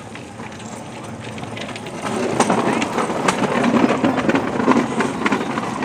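Bamboo train (norry) running on the rails, its wheels clattering over the track with many sharp clicks. It gets louder from about two seconds in.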